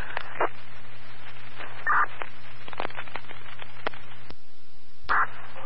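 Open fire-dispatch radio channel between transmissions: steady static hiss over a low hum, with scattered clicks. A brief chirp comes about two seconds in and another just after five seconds. The hiss drops out for under a second about four seconds in.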